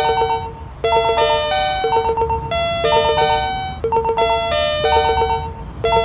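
Electronic chime playing a short bell-like melody of quick repeated notes, the phrase looping about every three seconds.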